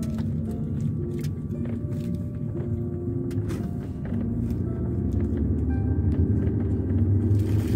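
A car driving, heard from inside the cabin: a steady low rumble of engine and road noise that grows louder from about four seconds in, with a few light clicks and rattles.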